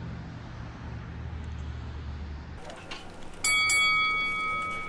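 A boxing ring bell struck twice in quick succession, ringing on and slowly fading. Before it, a low steady rumble stops about two and a half seconds in.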